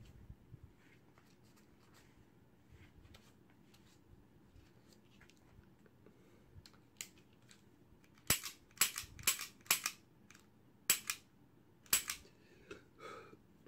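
A reassembled Taurus 9mm pistol being worked by hand in a function check: about eight seconds in comes a run of about half a dozen sharp metallic clicks from the slide and trigger, dry-fired, after faint handling and rag-wiping sounds.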